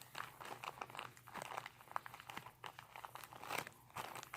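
Plastic sandwich bag crinkling and crackling faintly in irregular bursts as it is handled.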